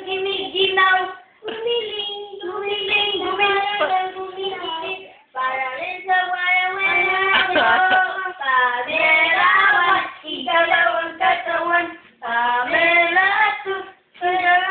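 Singing in short phrases with held notes, each line broken by a brief pause.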